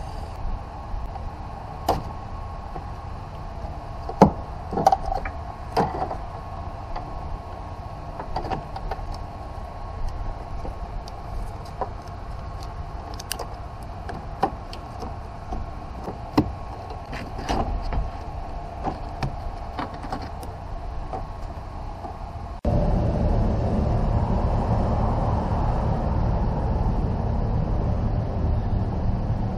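Scattered clicks and knocks, like hand tools working on a vehicle, over a steady hum. About 23 seconds in, the sound switches abruptly to a louder, even low rumble like wind on the microphone.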